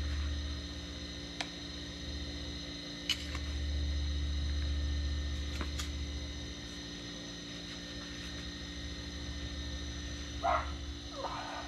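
Steady low hum with a low rumble that swells and fades, and a few faint clicks. Near the end come two short animal calls in quick succession.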